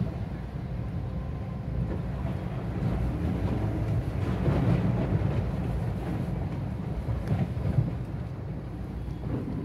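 Steady low rumble inside the cabin of a Maruti Suzuki Swift Dzire driving slowly through floodwater: engine running, with water washing against the tyres and underbody. The noise swells a little about halfway through and again near the end.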